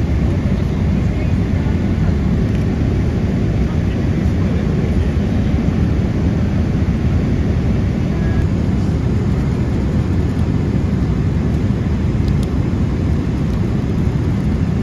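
Steady, loud low rumbling noise with no distinct events, like the running noise inside a moving vehicle or aircraft.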